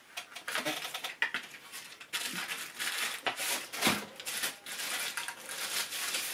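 Handling noises as a drink tumbler and its straw are unpacked and turned over: irregular rustling and crinkling with light clicks and taps.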